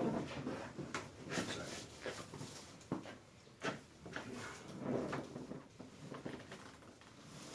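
Scattered soft knocks, creaks and rustles of a patient shifting on a padded chiropractic treatment table while being positioned on their side for a lumbar spine adjustment.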